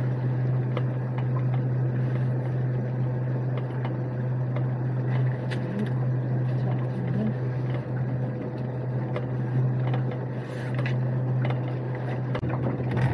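Small fishing boat's engine idling with a steady low hum, with a few light knocks from handling a crab pot on deck.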